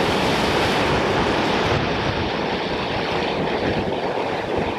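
Water pouring over a small concrete weir into a shallow wash, making a steady, even rushing.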